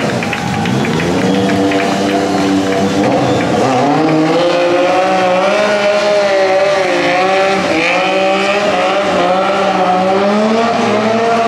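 Sport motorcycle engine revving loudly as the rider holds a wheelie, its pitch wavering up and down and climbing about four seconds in.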